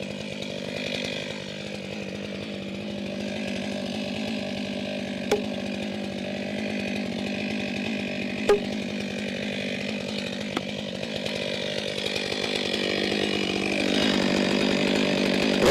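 Two-stroke chainsaw engine running steadily, getting louder a couple of seconds before the end. Three short sharp clicks sound over it, at roughly a third of the way in, midway, and about two-thirds through.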